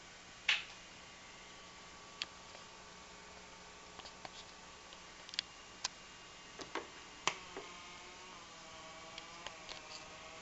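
Faint electrical interference noise from a battery-powered colour-changing LED lamp: a steady low hum and hiss broken by scattered sharp clicks, with a wavering whine that rises and falls from about eight seconds in.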